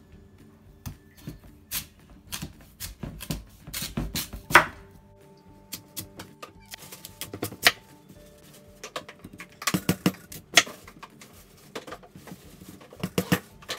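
Kitchen knife slicing a raw sweet potato on a wooden cutting board: irregular knocks as the blade cuts through and strikes the board, in short clusters with pauses between.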